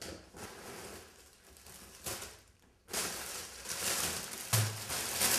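Plastic grocery bags rustling and crinkling as shopping is unpacked by hand. The crinkling grows louder and denser about three seconds in, with a brief dull thump near the end.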